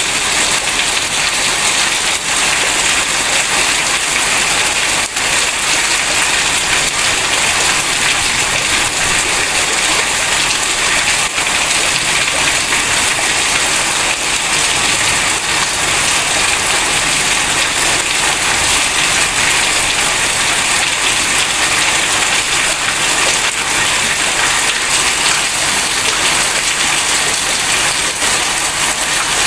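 Heavy rain falling steadily, a dense even hiss with a few sharper drop hits now and then.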